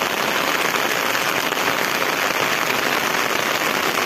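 Rain falling steadily: an even hiss that holds at one level without pauses.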